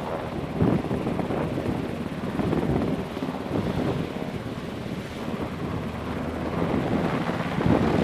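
Navy MH-60 Seahawk helicopter hovering low overhead, its rotor and turbine noise steady with uneven swells, with rotor downwash buffeting the microphone.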